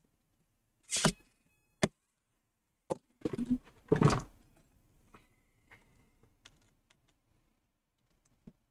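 Sharp clicks and knocks from handling an electric screwdriver and the opened laptop on a work surface: one about a second in, a cluster loudest around four seconds in, then a few faint ticks.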